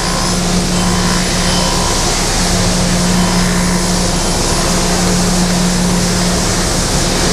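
Reid surface grinder running with its 60-grit, J-hardness wheel side-grinding the edge of a slot in a metal part, throwing sparks: a steady hum under an even grinding hiss.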